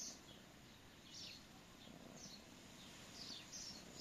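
Faint birdsong: several short, high chirps scattered through near silence.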